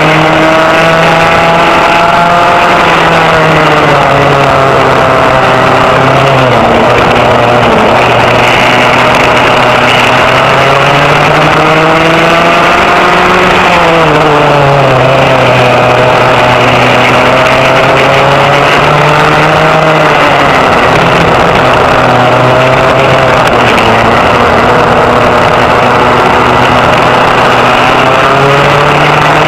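Vintage rear-engine racing kart's engine at racing speed, heard from on board the kart. It runs continuously, its pitch falling as the driver lifts for corners and climbing again under throttle: dropping a few seconds in, rising toward the middle, falling again, holding steady, then climbing near the end.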